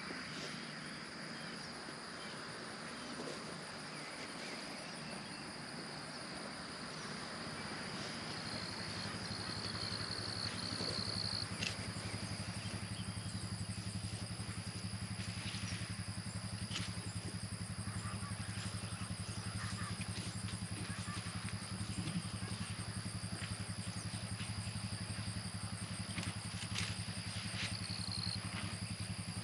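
An engine running steadily, coming in about eight seconds in and holding a low, even drone, over a constant high insect drone with a few short chirps.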